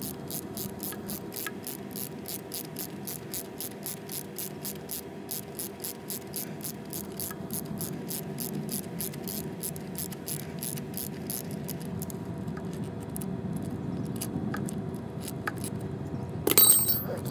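Steady rapid clicking, about four or five clicks a second, as a wrench works the nut of a homemade threaded-rod puller pressing a stuck piston pin out of the connecting rod; the clicking thins out later on. Near the end comes a single loud metallic clink that rings.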